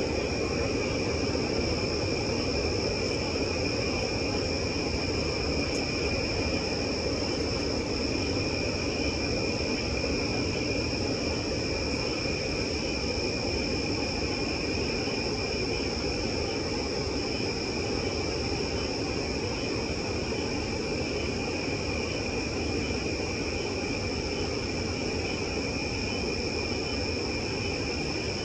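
Night insects trilling steadily, with a continuous high-pitched tone and a second, lower tone beneath it, over a constant low rumble.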